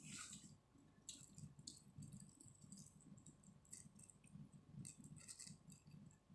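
Close-miked chewing of chicken biryani, with irregular soft mouth clicks and wet smacks every half second or so.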